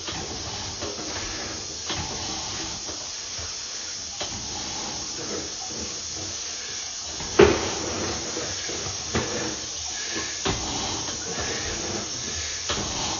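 Sewer inspection camera being pushed through a cast iron drain line: a steady hiss with scattered knocks from the push cable and camera head, the loudest about seven seconds in.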